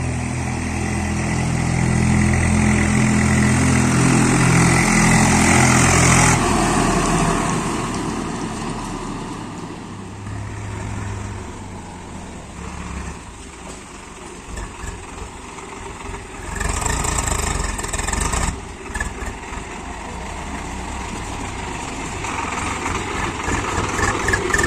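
Heavy diesel machinery running as a backhoe loader loads mud into a tractor trolley. An engine runs loud for about six seconds and then drops back to a lower, rougher running sound. A short burst of noise comes about seventeen seconds in.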